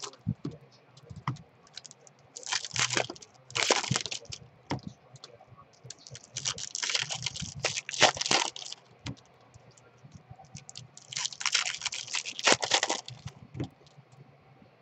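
Foil wrapper of a Topps baseball card pack crinkling and tearing as it is opened, in several short bursts of rustling, with small clicks of cards being handled in between.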